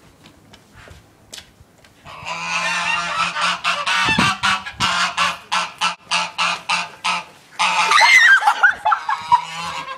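Canada geese honking loudly, starting about two seconds in: a dense run of harsh, rapid calls, then separate honks that swoop up and down in pitch near the end.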